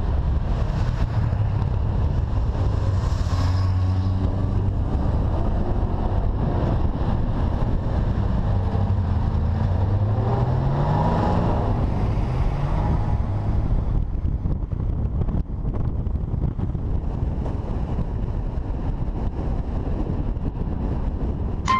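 A car driving on the road: its engine runs steadily under tyre and wind noise, and the engine note rises as the car accelerates about nine to eleven seconds in. After that the engine fades back into a steady rush of road and wind noise.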